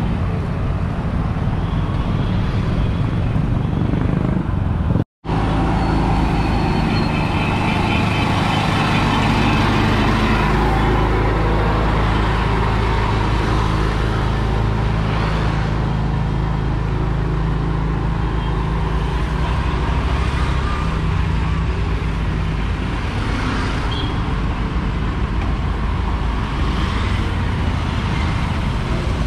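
Street traffic: motor scooters and other vehicles running along the road close by, with a low engine hum through the middle stretch. The sound cuts out completely for a split second about five seconds in.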